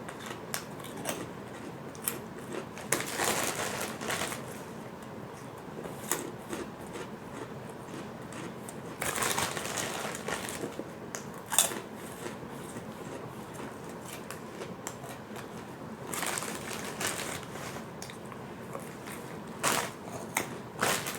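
Crunchy fish crackers being chewed close to the microphone: several spells of loud crunching a few seconds apart, with sharp crackly clicks in between.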